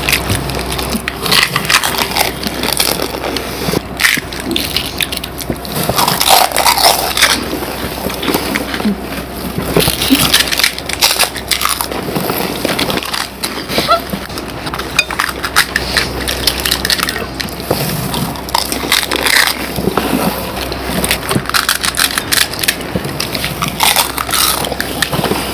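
Two people biting into and chewing crisp fuchka (pani puri) shells filled with tamarind water: a continual run of crackling crunches.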